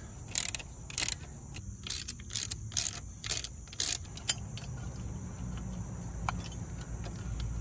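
Steel ratchet and socket clicking and clinking against the bolts of the exhaust-pipe mounting bracket as the two lower bolts are run in. The clicks come irregularly and are thickest over the first four seconds, then thin out to a few faint ones.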